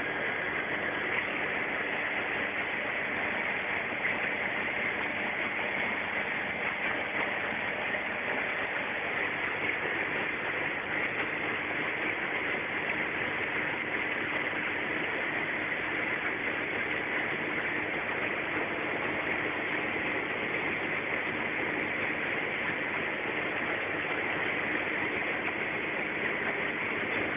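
Ikarus C42 microlight's engine and propeller drone mixed with rushing airflow, heard from inside the cockpit in flight. Steady and unchanging, with no change in power.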